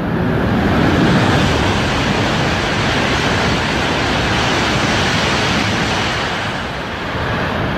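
E5 series Shinkansen bullet train passing a station platform at high speed without stopping: a loud, steady rush of air and rail noise. It swells in the first second and eases slightly near the end.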